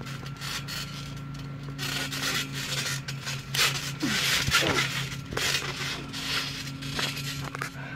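Scuffling and rubbing of bodies and shoes on a trampoline mat as two people wrestle, busiest about four to five seconds in as one is thrown down, with a couple of short squeaks. A steady low hum runs underneath.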